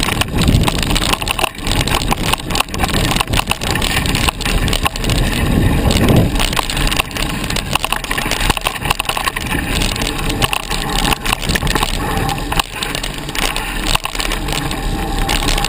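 Mountain bike ridden over a rough dirt trail, heard up close: a steady, dense rattling and knocking of the bike over the bumps, mixed with tyre noise on the dirt.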